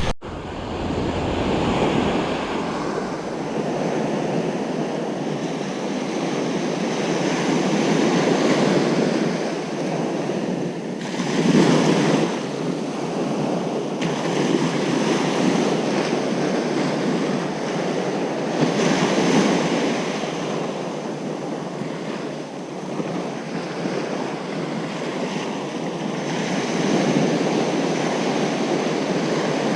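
Ocean surf on a beach: a continuous wash of breaking waves that swells and subsides every several seconds, with the biggest surge about a third of the way in.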